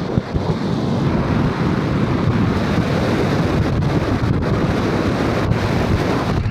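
Wind buffeting the microphone over the steady rumble of a vehicle driving at speed.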